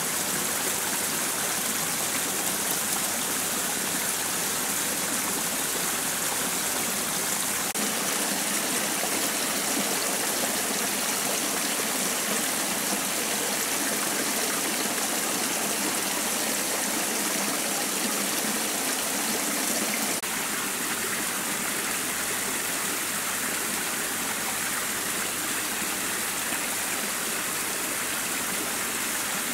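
Shallow rocky stream running over boulders: a steady rush of water.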